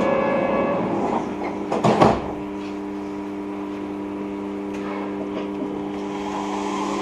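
Steady hum of a Yurikamome rubber-tyred automated train's electrical equipment as it stands at a station, with a couple of sharp thumps about two seconds in as the doors close. The noise rises slightly near the end as the train begins to pull away.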